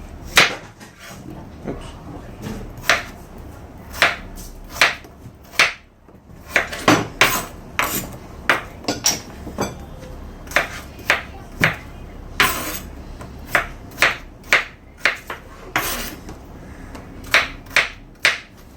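Kitchen knife chopping raw potatoes on a cutting board: a long run of sharp, irregular knocks, one or two a second.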